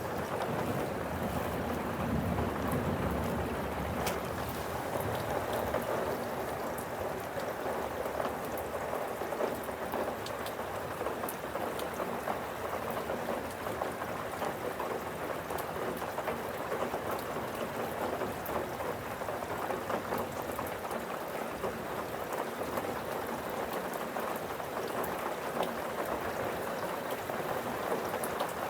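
Steady rain falling during a thunderstorm, with a patter of individual drops. A low rumble of thunder dies away over the first few seconds.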